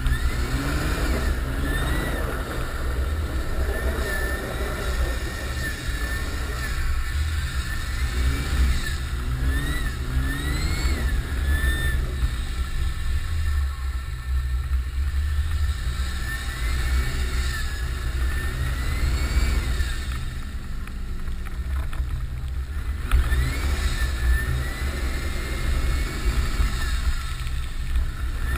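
Nissan Patrol Y60's 2.8 turbodiesel straight-six under load with its turbocharger whistling: a high whistle rises as the throttle opens and falls away as it closes, again and again, over a heavy low engine rumble.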